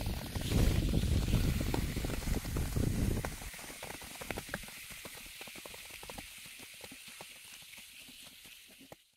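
Nordic skate blades and pole tips scraping and tapping on lake ice, under wind rumbling on the microphone for the first three seconds or so. After the wind drops, the short crisp scratches and taps are clearer, then fade out near the end.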